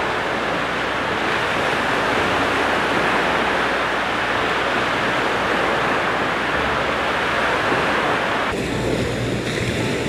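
Sea waves washing onto a sandy beach: a steady rush of surf, with some wind on the microphone. About eight and a half seconds in, the sound changes abruptly to a quieter background.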